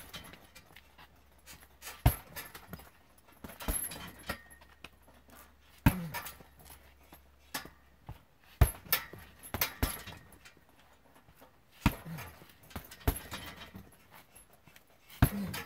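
Kicks landing on a hanging heavy punching bag, about ten sharp thuds at uneven gaps of one to two seconds, with short huffing breaths from the kicker after some of the strikes.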